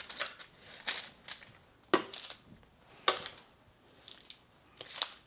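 Parchment paper crinkling and metal tongs tapping against a lined sheet pan as a slab of cooked pork belly is set down and arranged, in about five short rustles roughly a second apart.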